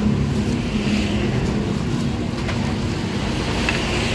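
Steady low engine hum of nearby road traffic, with a couple of faint clicks.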